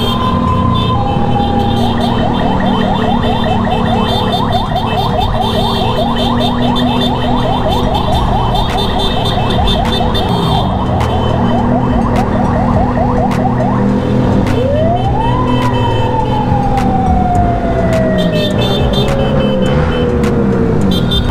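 Ambulance siren: a two-tone hi-lo for the first couple of seconds, then a fast yelp for about twelve seconds, then one wail that rises and slowly falls away. Motorcycle engines run steadily underneath.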